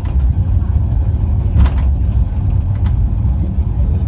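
Mitake Tozan Railway cable car running downhill: a steady low rumble from inside the car, with a couple of short knocks about one and a half and three seconds in.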